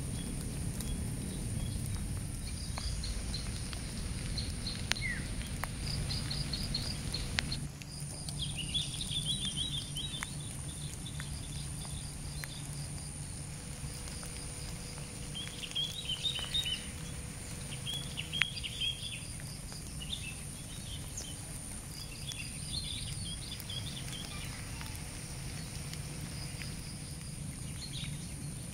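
Outdoor ambience with short runs of rapid high chirping calls repeated over a steady high-pitched whine and a low rumble, with a few faint clicks.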